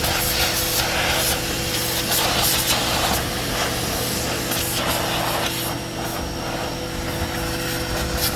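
Electric pressure washer running steadily, its pump humming under the hiss of a narrow 0-degree water jet blasting dirt off a car's wheel and tire; the hiss rises and falls as the jet moves.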